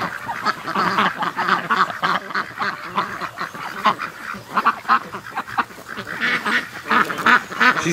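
A flock of domestic ducks quacking, many short calls overlapping in a continuous chorus; the excited morning clamour of a flock being let out of its pen.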